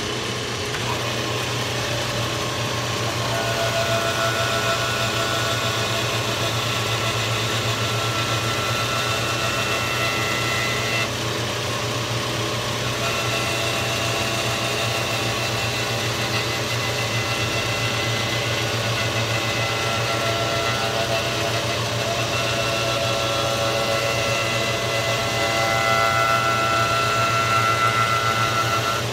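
Electric motor of a shop machine running steadily, with a low hum under a high whine whose pitch shifts every few seconds.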